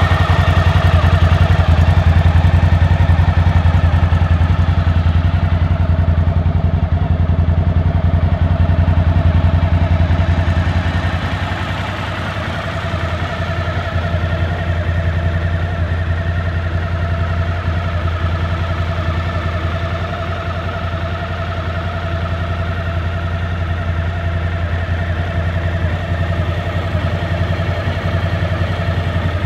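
2007 Suzuki V-Strom DL1000's 996 cc 90-degree V-twin idling steadily while it warms up after a cold start. It is louder for the first ten seconds or so, then a little quieter.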